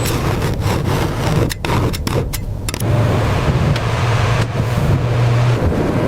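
Machinery running: a steady low hum under a noisy whir, broken by a few brief dropouts in the first half.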